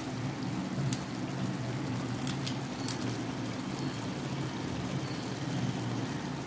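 Thick brinjal masala simmering in an open pan on a gas stove: a steady soft sizzle with a low hum underneath and a few small sharp pops between about one and three seconds in. The oil has separated out of the masala, the last cooking stage.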